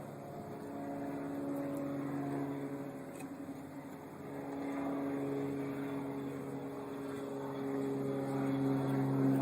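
DeWalt DWP849X electric rotary polisher running, a steady motor hum whose pitch and loudness shift as it is worked against the gelcoat, dipping about four seconds in and building again near the end.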